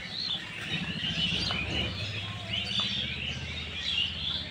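Several small birds chirping and twittering throughout, over a low steady hum.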